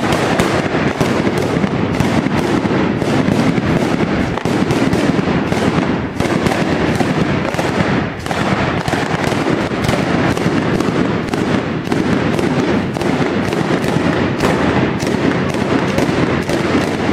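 A B509 Mascleta firework battery going off: a dense, continuous barrage of loud bangs and crackles, briefly thinning about six and eight seconds in.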